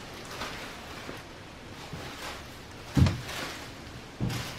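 Soft scuffling as a Cavalier King Charles Spaniel puppy plays with a large plush toy on carpet, broken by a loud dull knock about three seconds in and a second, softer one just after four seconds.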